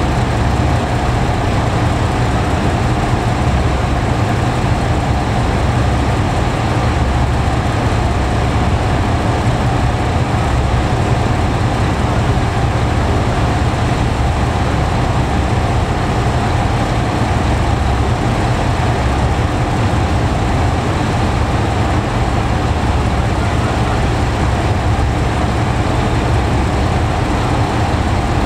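Diesel engine of a JR Shikoku 2000 series tilting diesel railcar idling steadily with the train at a standstill, a low, even rumble.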